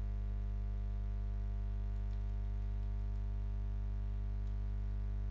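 Steady low electrical hum from the recording setup, a mains hum made of a stack of evenly spaced low tones, with a few faint ticks.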